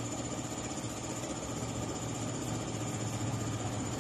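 A motor running steadily, with a thin high whine over a low hum.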